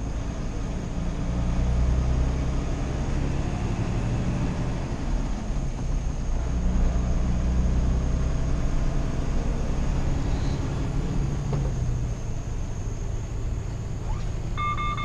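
A Freightliner Cascadia tractor's engine and road noise, heard from inside the cab as the weighted truck drives at about 35 mph. In the last instant, the Detroit Assurance Active Brake Assist acoustic collision warning starts: a pulsed high beep that signals the system has detected the obstacle ahead and is about to brake.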